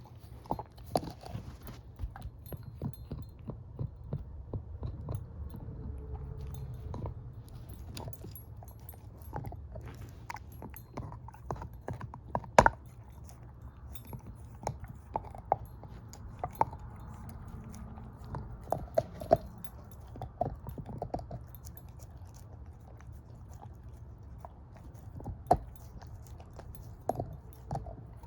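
Shepherd-mix dog chewing on a bone: irregular crunches and sharp cracks with short pauses between them, the loudest crack about halfway through.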